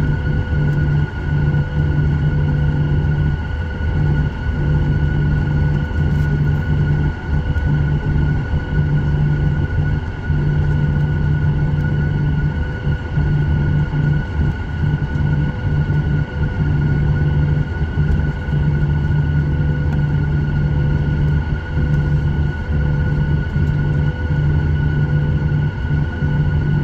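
Cabin noise of a Boeing 737-900ER taxiing, heard inside the cabin over the wing: its CFM56-7B engines run steadily at low taxi thrust, a constant whine of unchanging pitch over a low rumble.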